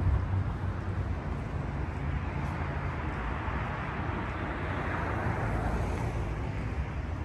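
City street traffic: a steady low rumble, with the tyre noise of a passing car swelling a few seconds in and then fading.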